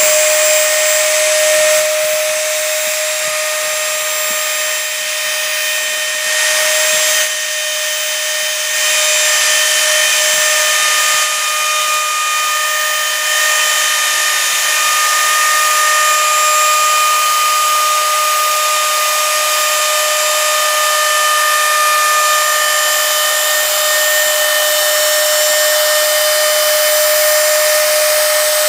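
Dremel rotary tool in a plunge router base running with a steady high whine as its 1/32-inch upcut bit routs a shallow groove for stringing inlay along a wooden table leg.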